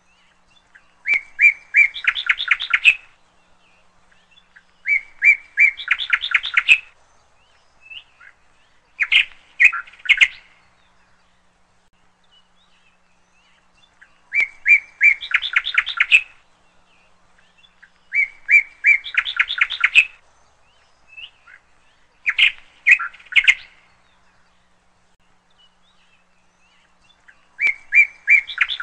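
A songbird singing one short phrase over and over, seven times, about every four seconds: a few separate chirps followed by a quick run of notes.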